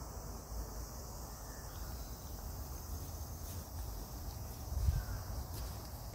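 A steady, high-pitched shrilling of an insect chorus. Under it runs a low rumble, with one soft thump about five seconds in.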